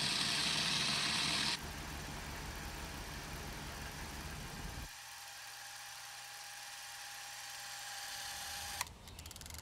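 Super 8 film camera motor running: a steady whirring hiss with a faint high whine. It drops in level about a second and a half in, thins further about halfway through, and cuts off with a click near the end.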